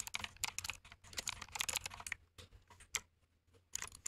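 Typing on a computer keyboard: quick runs of keystrokes, with a short pause a little before the end.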